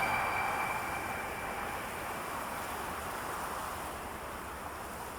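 Steady rushing noise, with the last of the music fading out in the first second or so.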